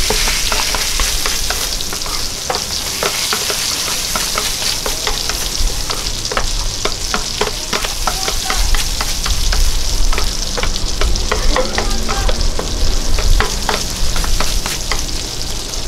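Fried rice sizzling on a flat griddle while two spatulas scrape, chop and push it together, with many sharp taps of the spatulas against the griddle surface over the steady sizzle.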